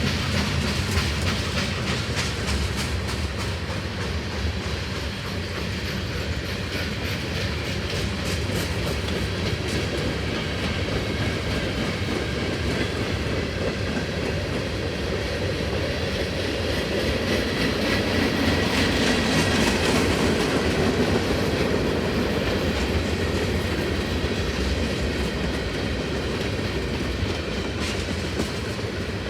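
A long freight train's cars rolling past with a steady clickety-clack of wheels over the rail joints, growing somewhat louder about two-thirds of the way through.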